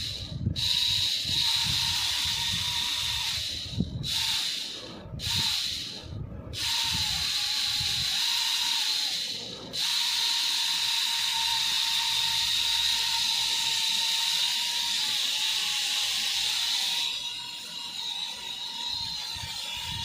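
Small coreless motors of a toy mini quadcopter running: a steady high whine with hiss, cutting out briefly about five times in the first ten seconds, then running on and getting a little quieter near the end.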